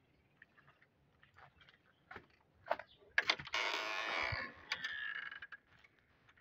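Scattered clicks and steps, then, about three seconds in, a wooden plank gate scraping and rustling as it is pushed open for about two seconds.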